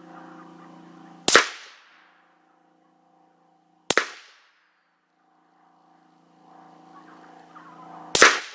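Three single rifle shots from an AR-15 with a 20-inch SOTA Arms upper firing .223 factory ammunition, each a sharp crack with a brief ringing tail. The first is about a second in, the second about two and a half seconds later, and the third near the end. A faint steady hum runs before the first and third shots.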